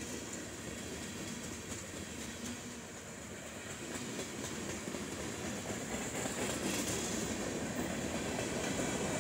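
Freight train's tank cars and covered hoppers rolling past: a steady rumble and clatter of steel wheels on the rails, growing louder in the second half.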